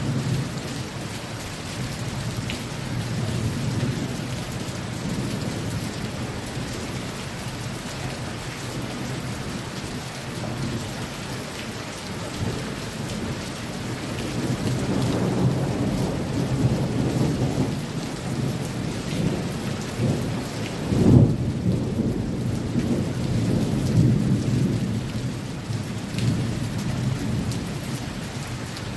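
Steady heavy rain with rolling thunder. The deep rumble swells from about halfway through, is loudest a little past two-thirds of the way, then rumbles on more softly.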